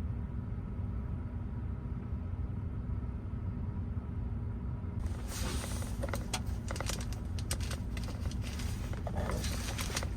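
Steady low motor hum, with clicking and rustling handling noises starting about halfway through.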